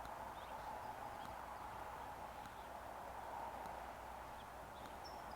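Faint outdoor background between shots: a steady low hiss and hum with scattered faint, short high chirps.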